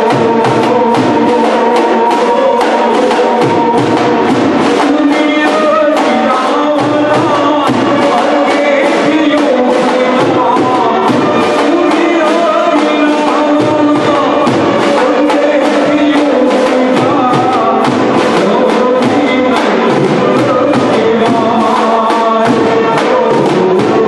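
Live Gujarati garba song: a man singing through a microphone over a steady, fast drum beat with held instrumental notes.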